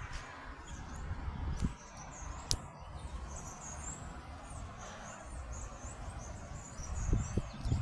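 Small birds chirping, a string of quick high calls through the second half, over a steady low rumble, with a single sharp click about two and a half seconds in.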